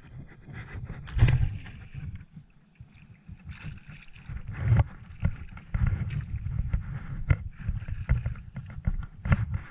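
Water splashing and slapping against a plastic sit-on-top kayak, with irregular knocks and bumps on the hull.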